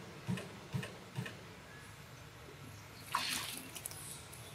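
Water splashing as a young monkey swims at a pond's stone edge, with a louder splash about three seconds in. A few soft low thumps come in the first second and a half.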